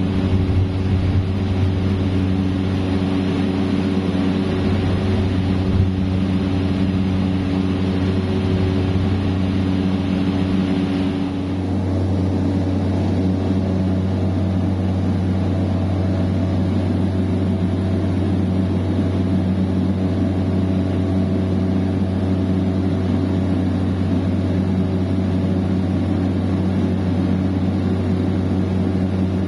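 Steady cabin drone of a single-engine turboprop in flight, with a low, even engine and propeller hum under a rush of air. About a third of the way in the airy hiss fades and the drone eases a little, then holds steady.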